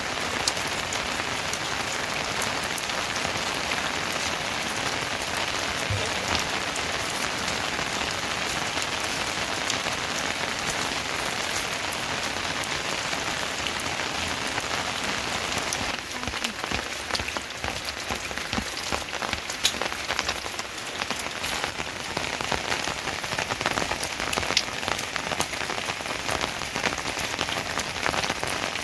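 Steady rain falling, a dense hiss with scattered sharper drop impacts; it turns a little quieter and more uneven a little past halfway.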